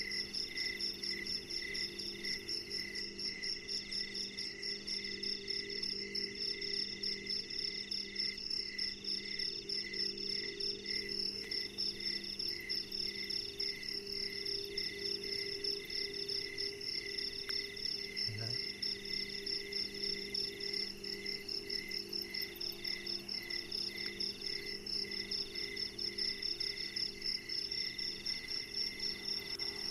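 Night chorus of crickets and other insects. Several steady trills sound at different pitches, one of them chirping about twice a second.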